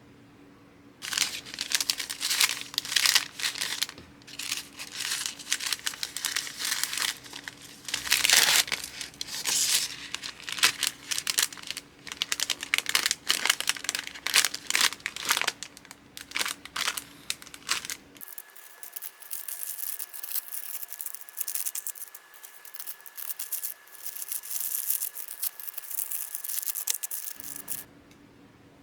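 Plastic packaging crinkling and rustling in hands, with tearing sounds, as orders are packed. It is a dense run of irregular crackles, with a faint steady high tone in the last third.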